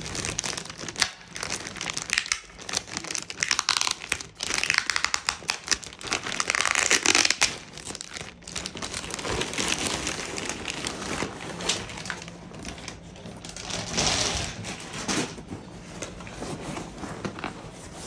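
Clear plastic packaging bag crinkling and rustling in irregular bursts as it is handled and pulled off a backpack. It is loudest about seven seconds in.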